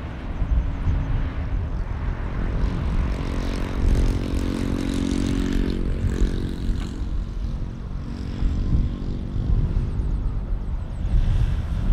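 Jet airliner engines humming under a steady low rumble; the droning tone swells about two seconds in, is strongest around the middle and fades away before the end.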